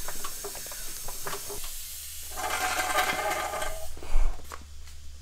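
Floodwater dripping and trickling from the flooded kart's exhaust onto the concrete floor, heard as a hiss with scattered drip clicks and a louder spell of splashing in the middle. A heavy thump just after four seconds is the loudest sound.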